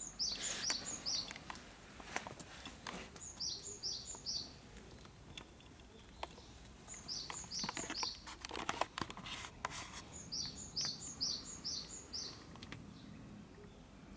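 A small bird singing short phrases of quick descending chirps, repeated about every three to four seconds, over scattered light clicks and knocks.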